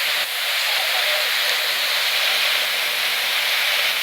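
Strong wind blowing across a camcorder microphone, heard as a steady, loud hiss. It sounds thin and tinny, with the low end filtered out.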